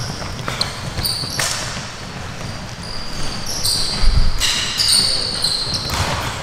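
Basketballs being dribbled on a hardwood gym floor, a steady run of bounces, with short, high sneaker squeaks now and then, loudest about four seconds in.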